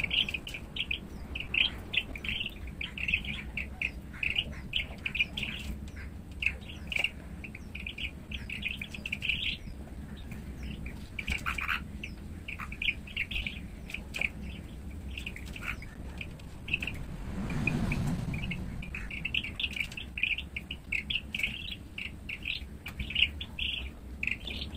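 Small songbirds chirping: a fledgling and its parents calling back and forth in quick runs of short, high chirps. The calling thins out just past the middle, where there is a brief soft rustle.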